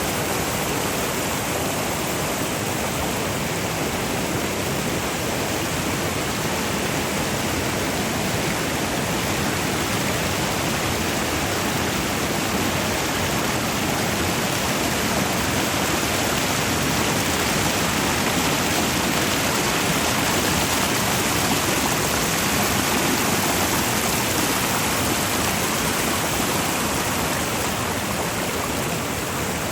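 The Virgin River's water rushing steadily over small waterfalls, an even, unbroken roar of moving water.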